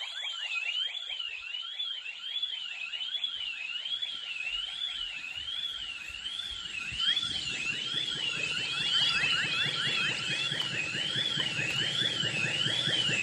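Ring Alarm security system sounding its intrusion alarm, tripped by an opened window's contact sensor while armed to Home, from the keypad and an Echo Show. A high warbling siren rises and falls a little more than once a second over rapid rising chirps, several a second, and it cuts off suddenly at the very end.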